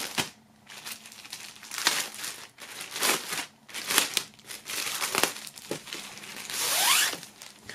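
Clear plastic bag crinkling and rustling in irregular crackles as hands lift it and reach inside it around a folded cloth flag.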